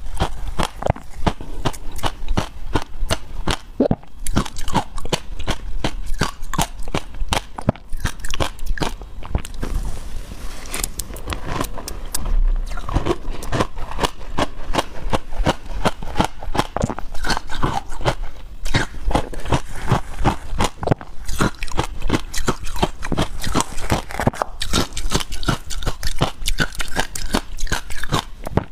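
Close-up crunching and chewing of crushed ice coated in matcha powder, a rapid run of crackling bites, mixed with a wooden spoon scraping and stirring through the icy mixture in a glass bowl.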